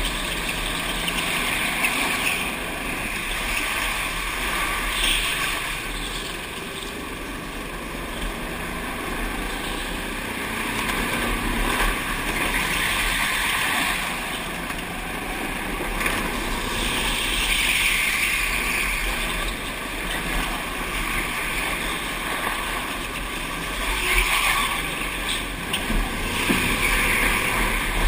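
Go-kart engines running at speed, heard from the driver's seat, swelling and easing every few seconds as the kart accelerates and slows through the corners.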